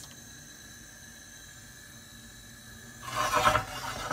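Gas hob burner running under a grill pan with a faint steady hiss, just after the igniter has lit it. About three seconds in comes a brief louder rustling, scraping noise, the loudest sound here.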